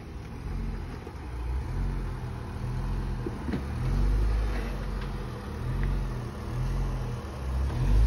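Jeep Wrangler JK Rubicon's engine running at low revs as it crawls up a rock ledge, the throttle swelling and easing every second or two. A light knock comes about three and a half seconds in.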